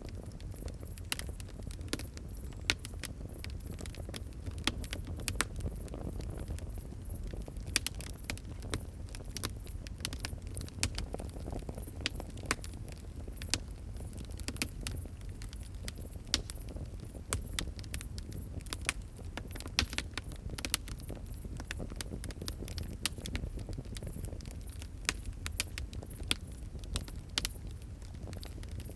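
Wood fire crackling: many irregular sharp pops and snaps over a low, steady rumble of flames.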